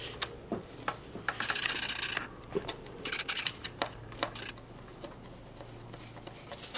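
Screwdriver working a small screw and washer into a guard: scattered light metal clicks and taps, with a scraping rasp between about one and two seconds in, as the screw is started into its hole.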